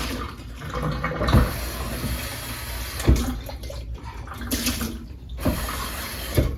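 Leftover water being poured out of a small electric travel kettle, splashing and running, with a few sharp knocks as the kettle is handled.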